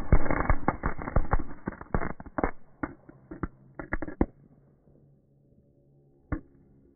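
Firecrackers going off in a fast, crackling string of bangs that thins out to scattered single pops and stops about four seconds in, with one last pop near the end.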